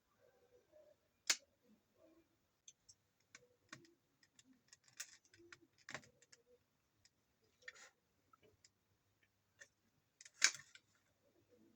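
Scattered small clicks and taps of plastic parts and tools being handled while a Dyson V10 cordless vacuum is taken apart for repair, with a louder sharp click about a second in and another near the end.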